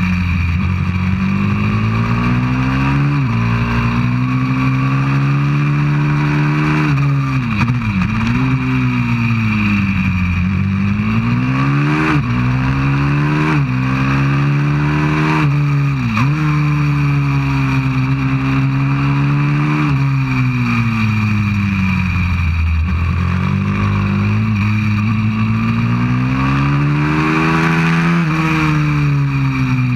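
190cc single-cylinder four-stroke pit bike engine at speed, its pitch rising under acceleration and falling off into corners, with sudden short breaks in pitch several times as it changes gear. Wind rush on the microphone over the engine.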